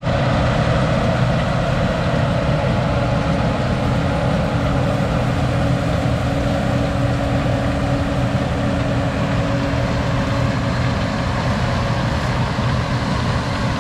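Heavy diesel engine of a harvest machine running steadily at constant speed, an even drone with no change in pitch.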